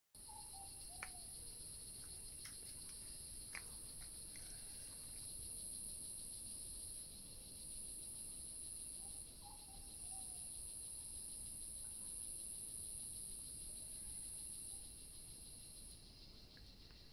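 Rainforest insect chorus: a steady high-pitched buzz of insects over a second, lower steady insect drone. The high buzz cuts off suddenly about a second before the end. A couple of faint short bird calls and a few soft ticks come through.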